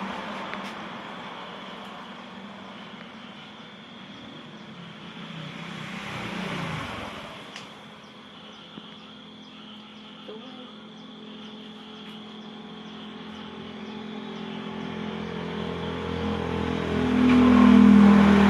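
Motor vehicles passing on a road: an engine hum drops in pitch as one goes by about six to seven seconds in, then another engine grows steadily louder toward the end.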